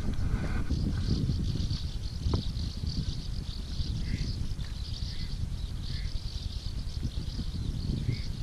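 Outdoor ambience: wind rumbling on the microphone under a steady, high-pitched pulsing chorus of insects, with a few short bird chirps from about halfway through and a single light click about two seconds in.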